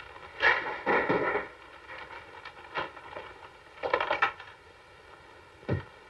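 Paper grocery bag crinkling in a few short bursts as groceries are handled and set down, with a dull knock near the end.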